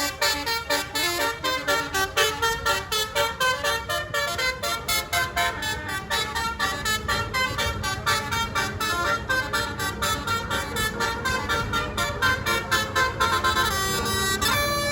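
Indonesian bus 'telolet' musical horn (Basuri-type multi-tone horn) playing a quick tune of short tooting notes at changing pitches, about three notes a second. Near the end the notes run together into a longer held tone.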